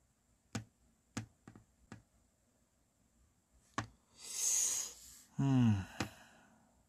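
Sharp, separate clicks, six in all, at uneven gaps. About two-thirds of the way through comes a long breath out, then a short voiced sound falling in pitch, like a sigh.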